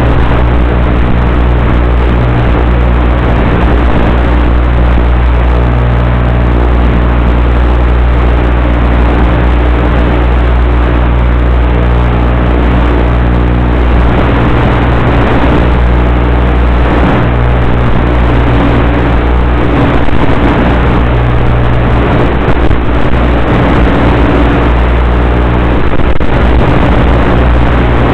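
Radio-controlled model plane's motor and propeller running steadily in flight, with wind rush, heard loud through the plane's onboard camera microphone.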